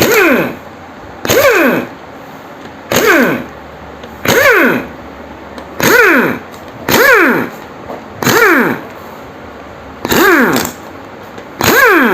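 Power tool, an impact wrench, run in nine short bursts about one and a half seconds apart, each falling in pitch as it runs down, undoing the bolts of a Bajaj RS200 motorcycle's clutch cover one after another.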